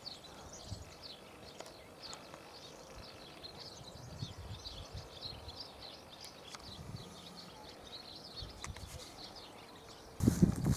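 Small birds singing across open countryside, a continuous scatter of short high chirps. In the last moment, loud footsteps swishing through long grass begin.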